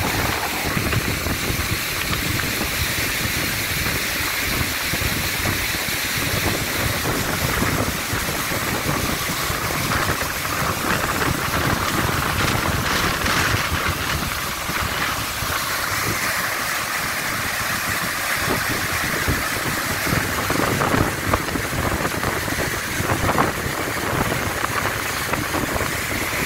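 Waterfall: white water pouring over rock in a steady, even rush.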